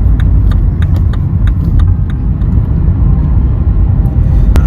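Loud steady low rumble, like road traffic or a car, with scattered light clicks and one sharper click near the end.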